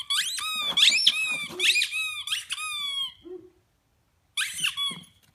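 A dog biting down over and over on a squeaky toy, setting off a rapid run of high squeaks for about three seconds, then a short pause and a second brief burst of squeaks near the end.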